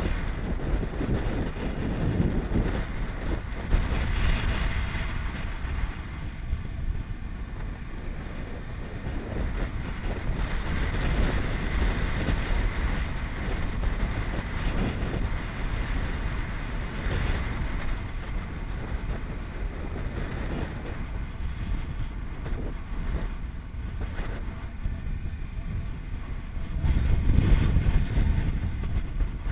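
Wind rushing over the microphone of a camera on a moving motorcycle, with the bike's running and road noise beneath. It swells and eases, and is loudest near the end.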